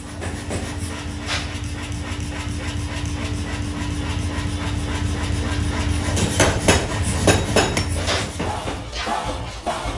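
Metal clanking and knocking over the steady hum of running machinery: one strike about a second in, then a quick run of strikes past the middle. The hum stops shortly before the end.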